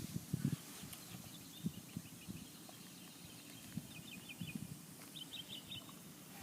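Faint bird chirps in three short bursts, with a few soft low knocks.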